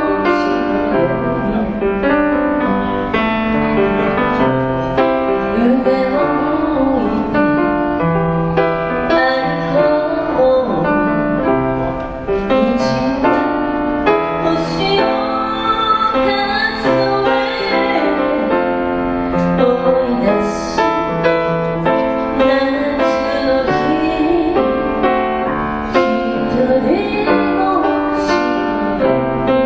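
A song sung by a voice over piano accompaniment.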